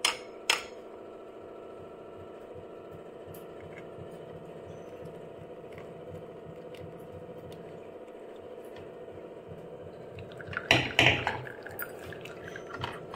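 Hot milky chai poured from a steel pan through a steel tea strainer into cups, over a steady hum. About eleven seconds in come several loud metallic clinks, and a few more near the end.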